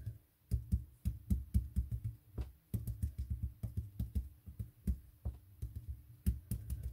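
Quick, irregular dabbing taps of an ink blending tool's foam pad on die-cut card ivy leaves, a few taps a second with brief pauses.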